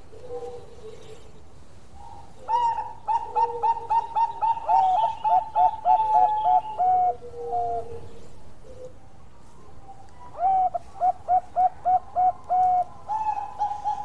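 Zebra dove (perkutut) cooing: rapid bursts of quick, evenly spaced staccato notes, about four a second, that step down in pitch partway through each phrase. There is a long phrase a few seconds in, a shorter one later, and a third starting near the end, with a fainter lower coo at the start.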